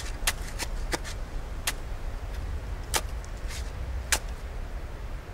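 Spades digging into soil: short, sharp cuts and scrapes come at irregular intervals, about one a second, over a steady low rumble.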